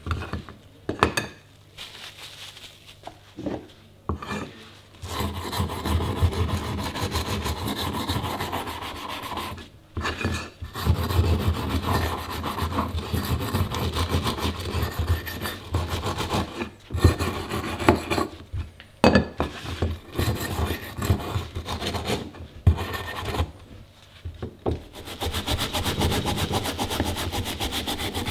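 A few knocks as metal parts are set down, then a wooden-handled wire brush scrubbing grime and old coating off the cast metal parts of an antique hand-cranked grinder, in long runs of fast rasping strokes with brief pauses. Near the end the scrubbing becomes steadier and more even.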